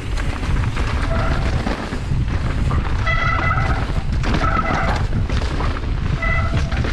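Mountain bike descending a dirt trail: steady wind and tyre noise on the bike-mounted camera, rattling over roots and ruts. A high, ringing freehub buzz cuts in four short times as the rider coasts.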